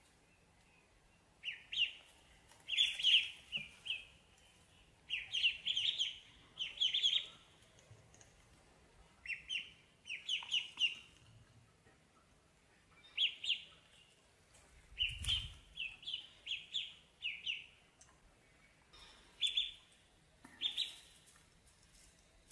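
Domestic ducklings peeping: bursts of short, high cheeps every few seconds, with brief pauses between.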